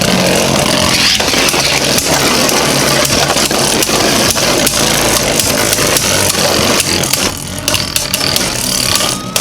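Two Beyblade Burst tops with 3D printed metal upgrades, Mega Flare Diabolos and Brave Matrix Hyperion, spinning and clashing in a plastic stadium: a steady whir with many quick clicks of collisions. The sound grows quieter and sparser about seven seconds in as the tops slow.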